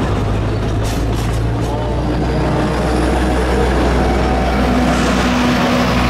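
Narrow-gauge diesel locomotive running close by as its train of passenger cars rolls past, a steady low engine drone throughout. About four seconds in the engine grows a little louder and a higher steady engine tone joins as the locomotive draws near.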